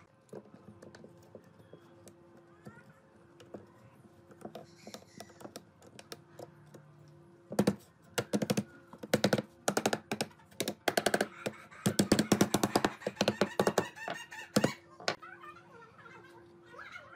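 Steel C-clamp being screwed down onto a bundle of bent thin wooden strips. After a quiet start, bursts of rapid sharp clicking and knocking begin about halfway through and are densest shortly before the end.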